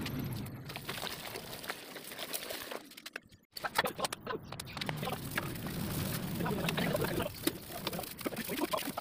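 Wet scrubbing and splashing: a sponge rubbing a CVT drive belt in a bucket of soapy water, then, after a sudden break about three and a half seconds in, a sponge scrubbing the inside of a scooter's CVT case with soapy water poured on, in many small scratchy rubs.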